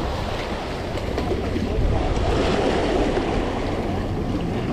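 Sea waves surging and splashing against the rocks of a jetty, a steady rush of churning water.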